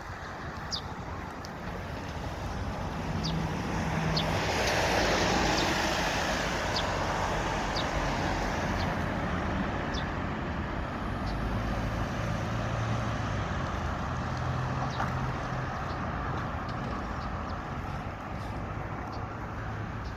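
Road traffic noise, with a vehicle passing that swells and fades about five seconds in. Faint short high chirps or ticks recur about once a second throughout.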